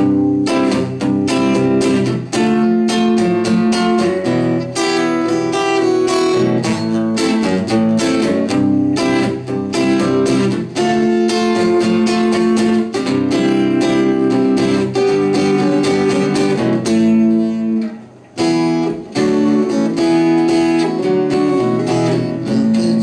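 Acoustic guitar strummed steadily in an instrumental passage of a song, with a brief near-stop about eighteen seconds in.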